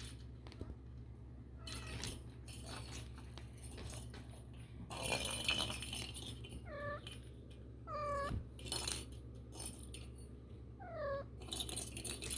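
A cat meowing three times in short calls that fall in pitch, among rustling and light clicks.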